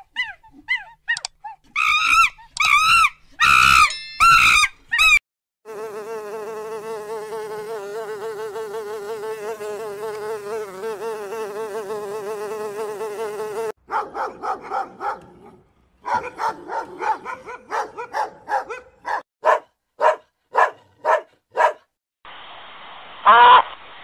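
Honeybees buzzing in a steady, wavering drone at a hive entrance for about eight seconds. Before it come short, chirping monkey calls, long-tailed macaque. After it come a string of short pulsed animal calls and one louder call near the end.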